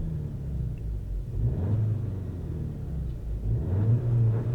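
Skoda Octavia's 2.0-litre engine revved lightly at standstill: a steady low drone that rises twice, once about a second and a half in and again near the end.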